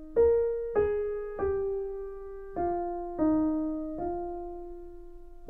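Background music: a slow melody of single struck notes, six in all, each one left to ring and fade before the next.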